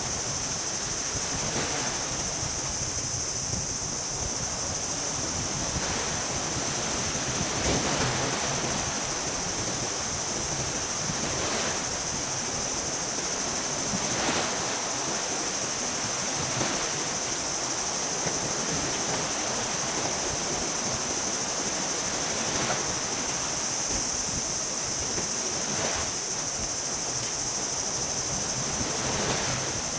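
Sea waves washing onto the shore in a steady rush that swells softly every few seconds, with a constant high-pitched hiss running over it.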